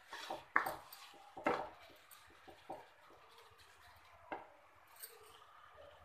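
Wooden spatula stirring grated carrots and sugar for gajar halwa in a non-stick kadhai, scraping and knocking against the pan. The strokes come thick in the first two seconds, then only a few isolated knocks.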